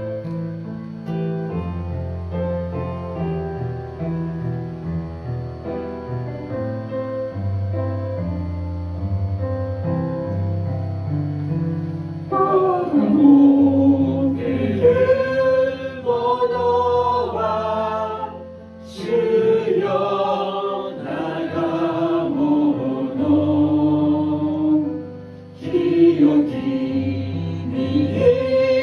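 A hymn's instrumental accompaniment plays sustained chords over a steady bass for about twelve seconds. Then a woman begins singing the hymn in Japanese over it, with short breaks between phrases.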